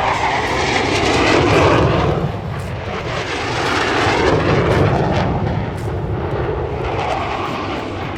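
Jet fighter engine noise from a Thunderbirds F-16 demonstration pass, a loud rushing roar that swells and fades twice.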